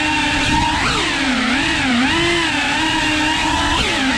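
Tiny whoop quadcopter's brushless motors and propellers whining. The pitch sweeps up and down with the throttle, with quick swoops about a second in and again near the end.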